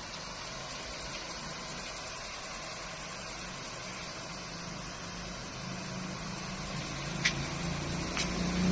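Steady background noise and low hum, growing slowly louder in the last few seconds, with two short clicks near the end.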